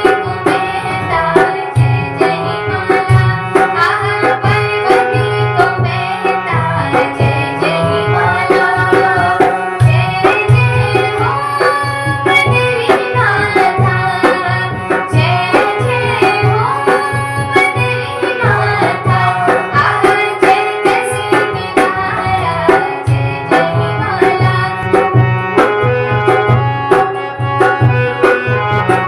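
Devotional bhajan music, with a tabla playing a steady rhythm under a moving melody.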